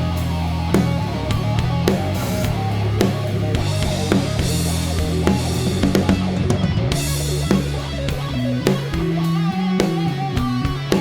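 Rock band playing an instrumental passage live with no vocals: electric guitar, bass guitar holding low notes, and a drum kit keeping a steady beat, with cymbal crashes about four and seven seconds in.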